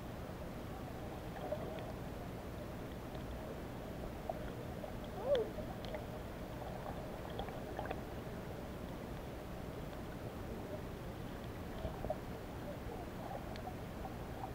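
Muffled underwater ambience in shallow sea water: a steady low rumble, with scattered faint clicks and one short squeaky chirp about five seconds in.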